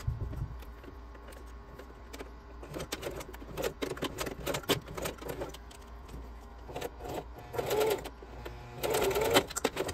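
Singer electric sewing machine stitching through folded webbing holding a D-ring, with a steady low motor hum and irregular needle clicks. Louder rustling bursts come near the end.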